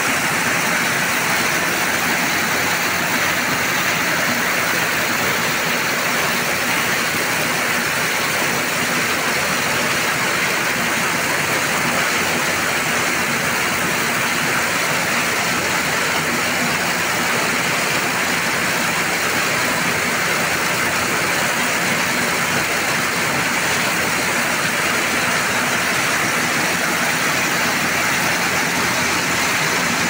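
Kubota corn harvester running at work, its engine and corn header gathering stalks in one loud, steady mechanical din with a rushing hiss.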